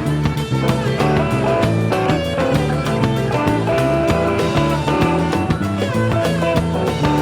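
Rock music with electric guitar, bass and a steady drum beat.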